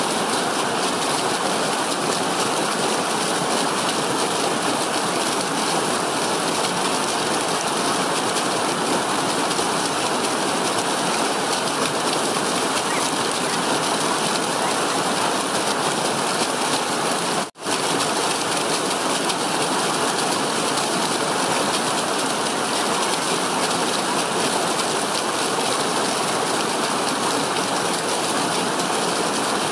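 Small stream tumbling over rocks in a steep cascade of white water, a steady rushing that drops out for an instant about two-thirds of the way through.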